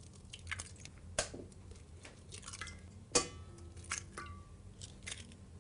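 Eggs being cracked over a stainless-steel mixing bowl: scattered light taps and clicks of shell on metal, a few leaving a brief metallic ring.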